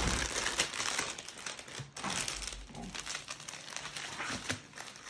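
Small plastic bags of diamond-painting resin drills being handled and crinkling, a dense run of small crackles throughout.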